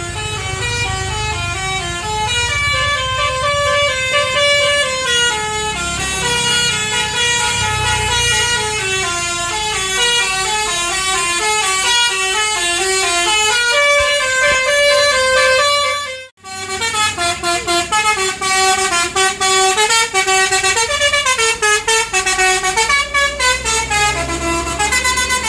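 Tour bus 'basuri' telolet horn playing a long melody of quick stepped notes, loud, over the low rumble of the bus engine. The tune breaks off briefly about 16 seconds in, then goes on with a faster run of notes.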